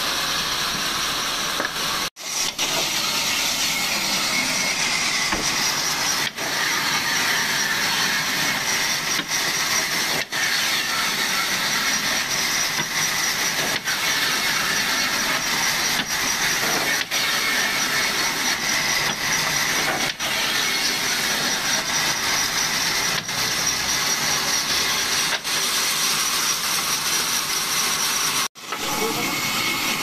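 Large sawmill band saw running and ripping a fresh log into planks, a steady high, noisy sound. It drops out briefly twice, about two seconds in and near the end.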